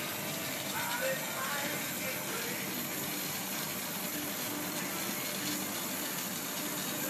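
Glassblowing torch flame hissing steadily.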